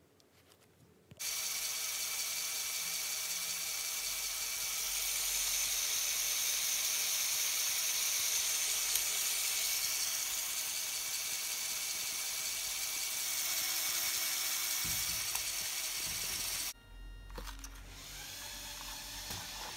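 Lego Technic drag car's electric motor and gear train running at full speed, a steady high whine and whirr, with the car held in the hand so the drive spins freely. It starts suddenly about a second in and cuts off suddenly a few seconds before the end.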